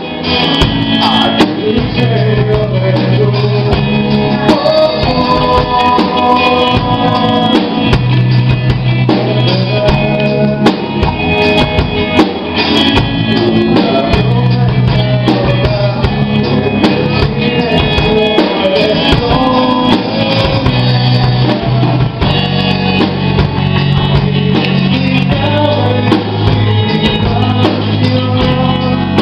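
Live rock band playing a song: electric bass and drum kit, with a man singing.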